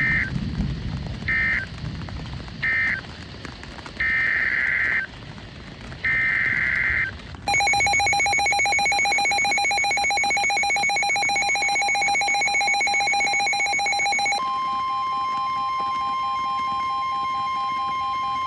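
NOAA Weather Radio SAME data bursts: three short end-of-message bursts, then longer two-tone header bursts announcing the next alert. At about seven and a half seconds a rapidly pulsing electronic alarm starts. About fourteen seconds in, it gives way to the steady 1050 Hz weather-radio warning alarm tone that precedes a flash flood warning.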